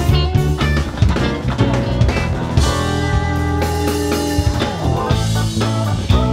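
Live rock band playing an instrumental passage on electric guitars, bass, keyboards and drum kit. The drums ease off under a held chord for a couple of seconds in the middle, then come back in.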